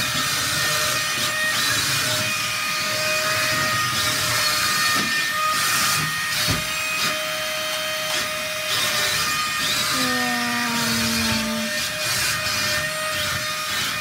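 Suction fan of a wall-climbing remote-control toy car running steadily with a high whine and hiss, holding the car against the wall as it drives. A short falling tone is heard about ten seconds in.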